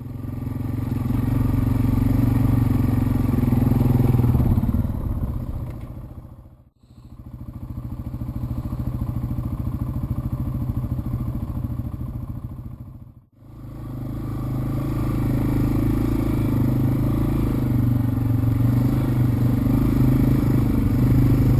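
Yamaha TW200's single-cylinder four-stroke engine running steadily under way on a ride, in three stretches that fade out and back in about a third and two-thirds of the way through.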